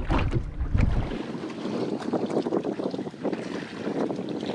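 Wind buffeting the microphone for about the first second, then water sloshing and splashing against the hull of a small boat as a hooked fish thrashes at the surface beside it.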